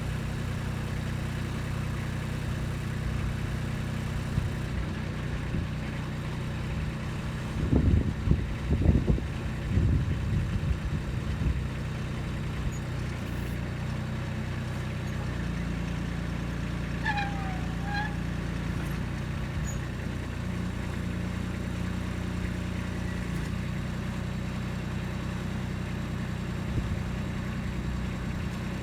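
Kubota B2630 tractor's three-cylinder diesel engine running steadily, its pitch shifting a couple of times. A cluster of low clunks and rattles comes about eight seconds in, and a brief squeak a little later.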